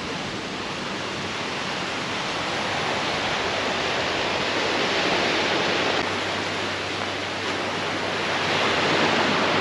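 Small sea waves washing onto a sandy, rocky shore: a steady hiss of surf that swells about halfway through and again near the end.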